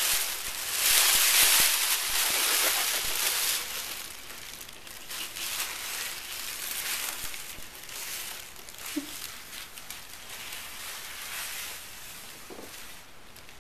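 Thin plastic shopping bags crinkling and rustling as a kitten burrows and moves about in them, loudest in the first few seconds, then lighter on-and-off rustling as it walks with a bag draped around its body.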